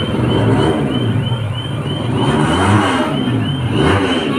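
Honda Brio race car's four-cylinder engine revving through its aftermarket exhaust, the pitch rising and falling twice in the second half.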